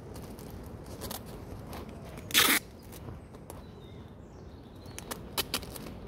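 A cardboard box being handled and sealed with packing tape: a brief, loud rip about two and a half seconds in, then a few sharp clicks and rustles near the end.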